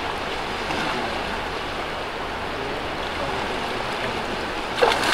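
Fast river current rushing steadily. Near the end, a sudden loud splash in the water.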